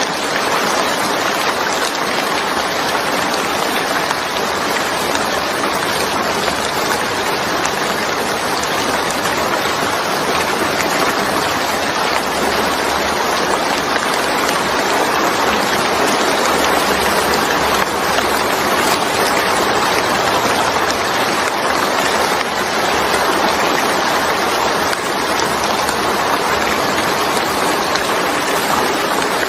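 Steady, even rainfall, a dense hiss of rain with no distinct drops or changes.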